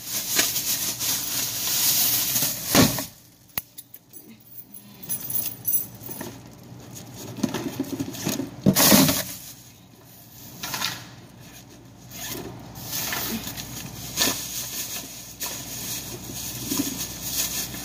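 Irregular rustling and handling noises with scattered clicks and knocks, quieter for a couple of seconds a few seconds in.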